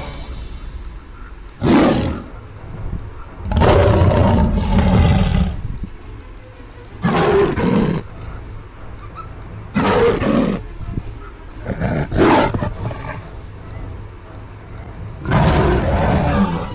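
Lion roars in about six loud separate bursts a couple of seconds apart, the longest lasting about two seconds, over a low steady rumble.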